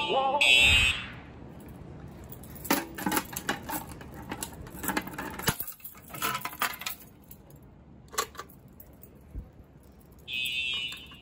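Simplex TrueAlert fire alarm horn pulsing, cutting off about a second in. Keys then jangle and clink in bursts for several seconds, and near the end the horn starts pulsing again.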